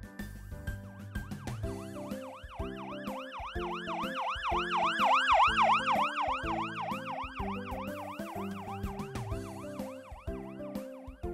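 Police siren on a fast yelp, rising and falling about three times a second, growing louder toward the middle and then fading as if the vehicle passes. Children's background music with a steady beat plays underneath.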